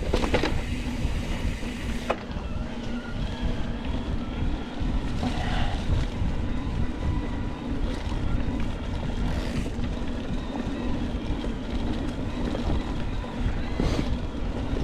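Mountain bike riding down a dirt trail: wind rushing over the camera microphone and tyres rumbling over the ground, with a few sharp knocks from the bike over bumps.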